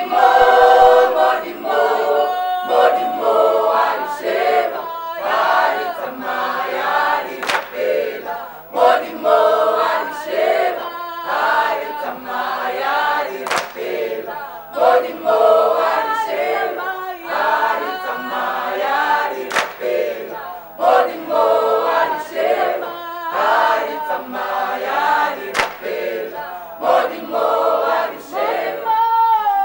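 Church choir of women and men singing a gospel song together in phrases, with a few faint sharp clicks every six seconds or so.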